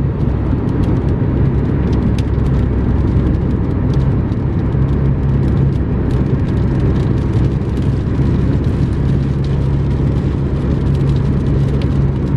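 Steady vehicle noise heard from inside a truck's cab: a constant low drone with many faint, scattered ticks over it.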